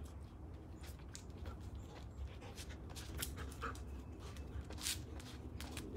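A dog panting in short, irregular breaths over a low steady rumble.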